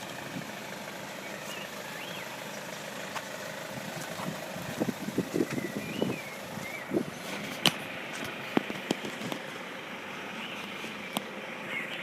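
Class 150 Sprinter diesel multiple unit idling steadily with a low hum, with a few brief bird chirps and scattered light knocks and clicks over it.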